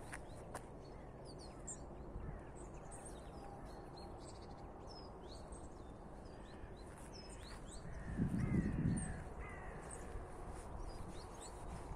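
Small birds chirping throughout, with a crow cawing several times in the second half. About eight seconds in there is a low rush of noise lasting about a second, the loudest sound here.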